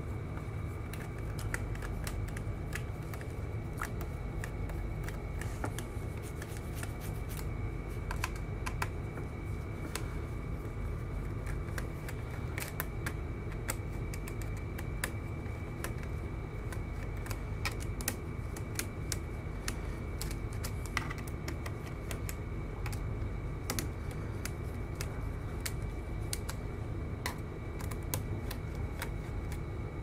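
Light, irregular clicks and taps of a small screwdriver and fingertips on a laptop's bottom cover while its screws are worked, over a steady background hum with a faint high whine.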